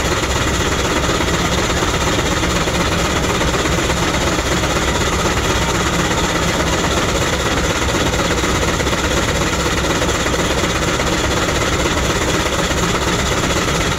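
Steam traction engine running steadily while driving a generator through a long flat belt, with a fast, even mechanical beat.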